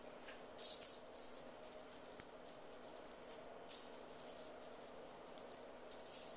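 Cinnamon-sugar granules sprinkled by hand, pattering onto buttered flour tortilla wedges and foil on a baking sheet in three short, faint hisses, over a steady low hum.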